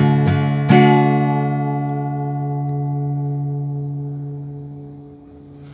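Acoustic guitar: two quick strums, then a final chord struck just under a second in and left to ring out, fading slowly over the following seconds. This is the closing chord of the song.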